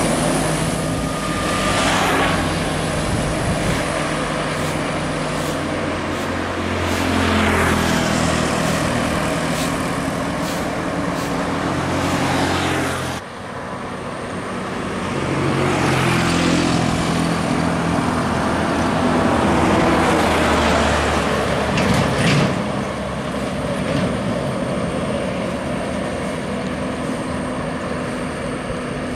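Heavy diesel buses and trucks passing on a highway: engine drone with a swell of tyre and engine noise as each one goes by. About halfway through, the sound changes abruptly to a slow column of trucks grinding up the road.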